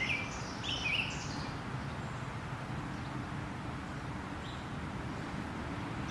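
A few short bird chirps in the first second or so, then steady low background noise outdoors.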